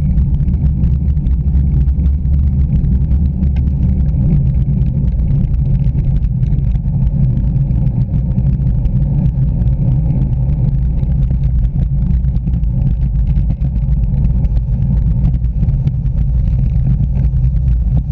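Wind buffeting an action camera's microphone on a moving road bike, mixed with tyre noise on tarmac: a steady, loud low rumble.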